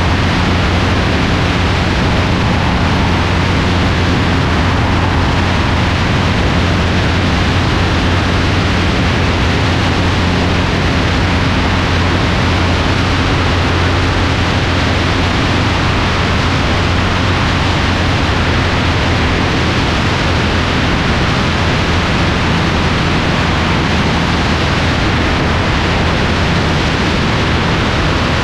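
Piper Arrow single-engine light aircraft in flight: a steady engine and propeller drone under a heavy rush of airflow noise.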